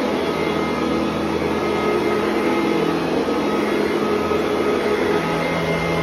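Upright vacuum cleaner running steadily while being pushed over carpet, a constant motor whine over a low hum.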